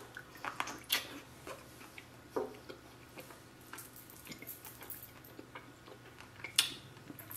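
Close-miked eating sounds from a seafood boil: scattered soft clicks and smacks of chewing and handling shellfish, a little louder about a second in and near the end.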